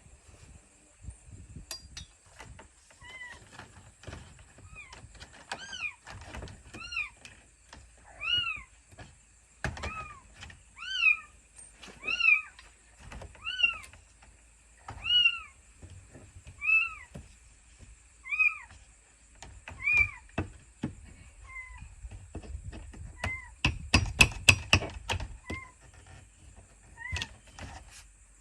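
An animal calling over and over, short rising-and-falling calls about every second and a half. Scattered knocks and clinks come from nails being worked out of vinyl siding, with a quick run of loud knocks near the end as the loudest sound.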